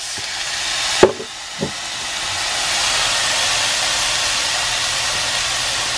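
Frying pan of rice, vegetables and spam sizzling as coconut aminos is poured in, the sizzle swelling over the first few seconds and then holding steady. A sharp click about a second in and a softer knock just after.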